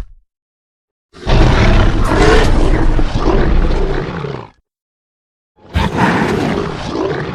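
Ultimasaurus dinosaur roar sound effects, two roars: a long one lasting about three and a half seconds, then after a short silence a shorter one near the end.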